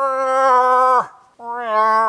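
Cow moose calls: long, loud nasal wails, each held at a steady pitch and dropping off sharply at its end. One call breaks off about a second in, and the next begins shortly after and carries on.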